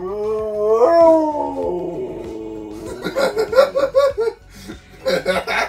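Siberian husky howling in answer to a siren: one long howl that rises about a second in and then slowly falls. In the second half a man laughs.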